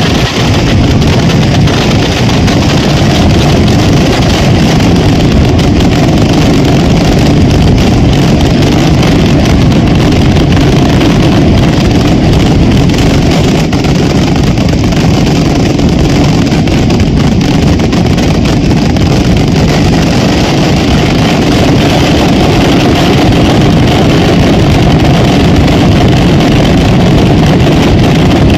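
Mascletà firecrackers going off in one continuous, dense barrage of bangs that blur into a roar, loud enough to overload the phone's microphone.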